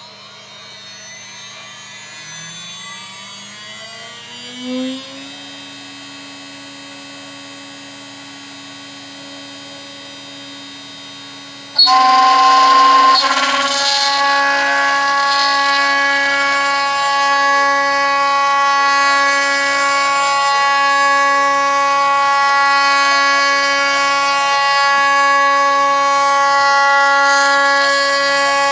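DIY CNC milling machine: a rising whine that settles into a steady hum, then, about twelve seconds in, a sudden loud cutting squeal with several steady high tones as the end mill bites into aluminium. The cutter goes straight in with no ramp-down, at too high a speed and without coolant.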